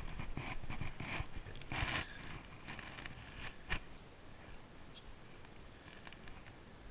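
Knife blade scraping scales off a rockfish: a run of short, scratchy strokes through about the first four seconds, fainter after that.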